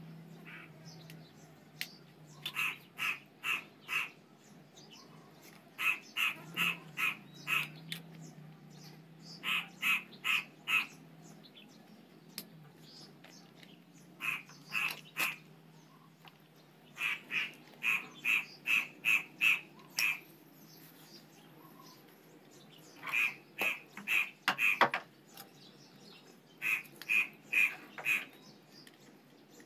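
An animal calling in runs of short, evenly spaced notes, about three or four a second, with each run of four to ten notes coming every few seconds.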